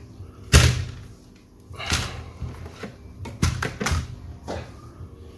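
Laptop case and display parts being handled and fitted together by hand: a series of sharp clicks and knocks, about five in all, the loudest about half a second in.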